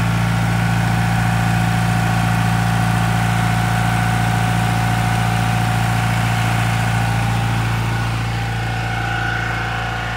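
John Deere diesel power unit running steadily at about 1,900 rpm, driving a deep-well irrigation pump: a loud, even drone that eases off slightly near the end.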